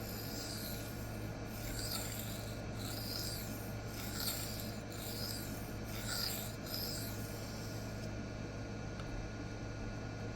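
Steel knife blade scraping back and forth across a Rikon 400/800 grit CBN sharpening plate, a run of raspy strokes about a second apart that ease off over the last few seconds, over a steady low hum.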